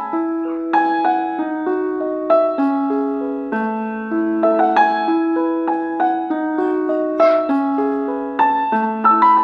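Background piano music: a gentle melody of struck notes with a steady pulse.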